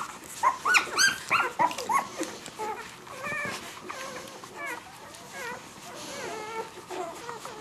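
Ten-day-old puppies squeaking and whimpering while they nurse: a run of loud, high squeals in the first two seconds, then fainter squeaks here and there.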